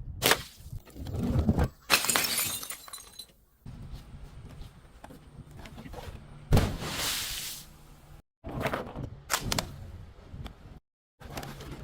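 Glass bottles being smashed: several separate breaks, each a sudden crash followed by the rattle and tinkle of shattering glass, with crunching in between. Two abrupt dead-silent gaps break up the sequence.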